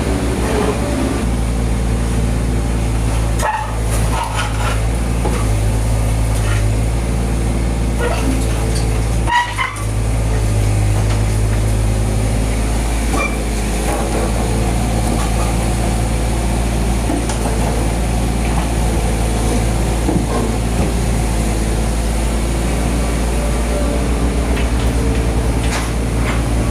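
A heavy engine running steadily at a constant speed, with a few short knocks and clanks over it.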